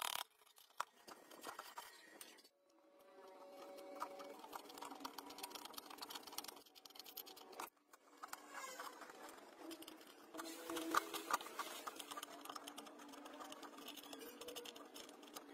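Dense scratching and crackling from hand work on a sheet-metal tank. It is faint and breaks off abruptly twice, about two and a half and seven and a half seconds in.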